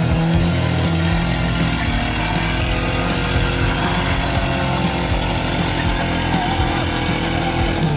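Off-road 4x4's engine running steadily under load as the vehicle crawls through a muddy trench.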